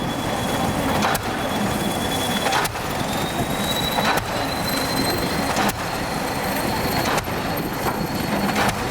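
Pile hammer on an EO-5111B excavator's pile-driving rig striking a pile at an even pace, about one blow every second and a half, six blows in all, over the steady running of the machine and a thin high-pitched whine.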